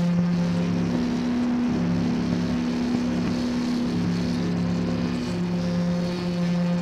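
Electric guitar noise drone: several low tones held steadily, with a higher tone joining about half a second in and dropping out a little after five seconds, heard from inside a toilet cubicle.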